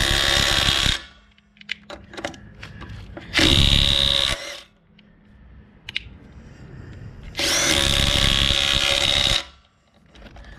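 Ridgid 18-volt sub-compact brushless 3/8-inch impact wrench, on its high-power setting, hammering in three bursts of one to two seconds each, breaking lug nuts loose. The first burst ends about a second in, the others come about four and eight seconds in, with a few light clicks in the gaps between them.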